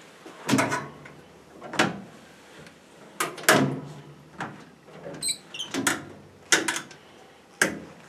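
Sharp knocks and clanks of metal on the stainless-steel commercial dishwasher as it is worked by hand with a squeegee, about eight strikes at uneven spacing, with a brief high squeak about five seconds in.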